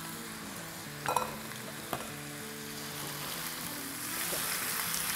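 Diced potatoes sizzling in hot oil in a frying pan as they are stirred with a silicone spatula, with two brief knocks about a second in and just before two seconds.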